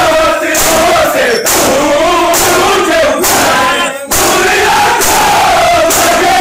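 Men's voices chanting a Punjabi noha together, a melody that rises and falls. Through it comes the rhythmic slap of hands striking bare chests in matam, just under one beat a second, with a short break about four seconds in.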